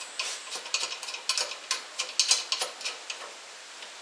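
Irregular light clicks and scrapes from a steel car mudguard being handled and shifted on its stand. They die away about three seconds in.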